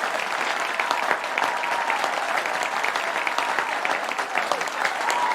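Large crowd applauding and cheering, with several long whistles that hold one pitch and then drop at the end.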